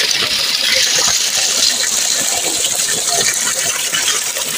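Small waterfall splashing down a narrow cleft between rocks into a shallow pool: a steady rush of falling water.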